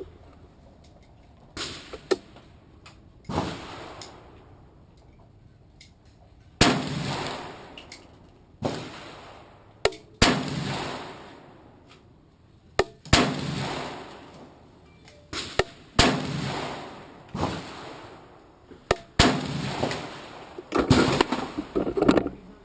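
300 AAC Blackout AR-15 rifle firing about a dozen single shots at an unhurried pace, one to three seconds apart. Each shot is a sharp crack with a short echoing tail.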